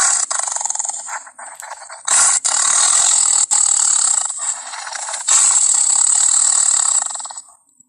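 Made-up Indoraptor dinosaur sound effect: a raspy, fluttering creature call. A shorter broken burst comes at the start, then a long loud rasp from about two seconds in that fades out near the end.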